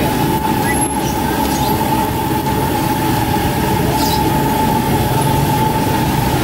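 Tofu fritters deep-frying in a large wok of bubbling oil at a street stall, with the wok's burner going underneath: a steady, loud roar with a constant whistle-like tone running through it.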